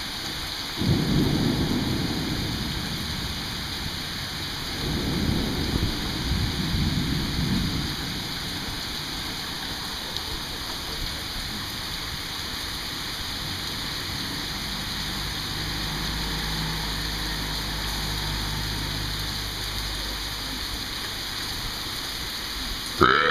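Steady rain with two rolls of thunder, the first about a second in and the second about five seconds in, each rumbling for a few seconds before fading. A low steady drone sits under the rain later on.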